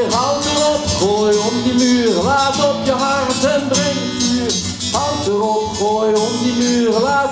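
A man singing a held, sliding melody line with vibrato over a strummed acoustic guitar.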